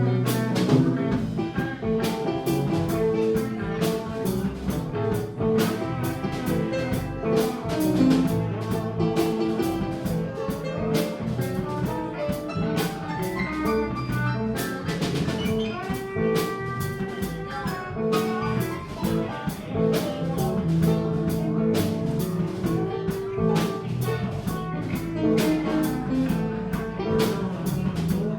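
Live band playing an instrumental passage with a steady drum beat and guitar.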